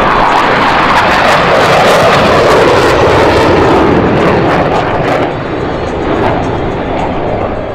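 Blue Angels F/A-18 Super Hornet jet making a loud low pass, its engine noise at full strength and easing off near the end as it moves away.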